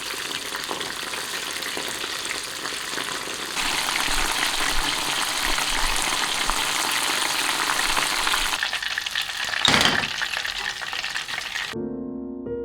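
Food sizzling as it fries in hot oil, a steady crackling hiss that grows louder about three and a half seconds in, with one brief louder burst near ten seconds. The sizzle cuts off suddenly shortly before the end, when piano music starts.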